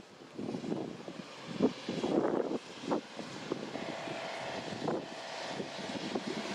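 Wind buffeting the microphone in uneven gusts, with a faint steady tone coming in about four seconds in.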